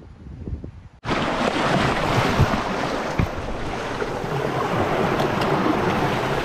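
Seaside wind and surf rushing over a close action-camera microphone: a loud, steady roar of noise that starts suddenly about a second in, with a few small knocks from handling. Before that, a quieter low rumble of the sea.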